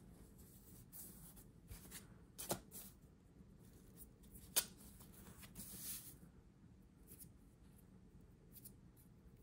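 Faint handling of washi tape and planner paper: tape being pulled from the roll and pressed onto the page, with two sharp taps about two and a half and four and a half seconds in and a short rasp near six seconds.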